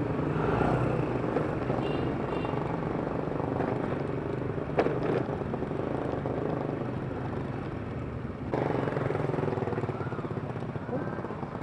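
Yamaha Mio i 125 scooter's single-cylinder engine running while riding, mixed with wind noise on the microphone; the noise changes abruptly about three quarters of the way through, with a single click about halfway.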